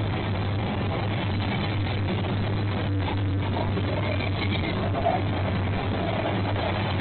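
Diesel locomotive engine running steadily, a low even hum.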